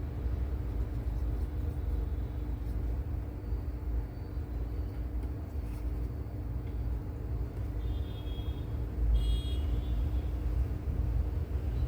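Steady low background rumble with a faint continuous hum, and brief thin high-pitched tones about eight and nine seconds in.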